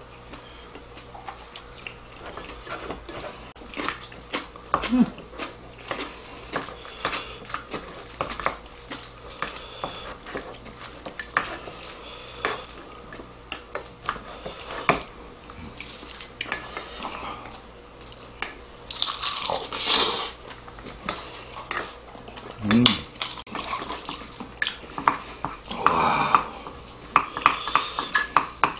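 Chopsticks and a spoon clicking and scraping against ceramic rice bowls and plates during a meal, with many small clicks throughout. Two longer, louder noisy scrapes stand out, one about two-thirds of the way in and one near the end.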